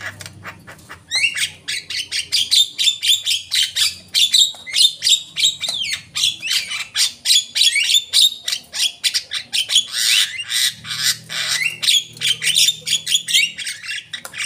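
Javan myna (jalak kebo) singing a fast, unbroken string of short chattering notes mixed with quick rising whistles, with a brief lull about a second in.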